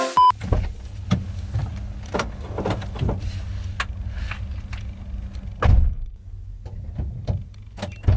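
Car cabin with the engine idling: a steady low hum under scattered knocks, rustles and handling noises, with one louder knock a little before six seconds in. A brief beep comes right at the start.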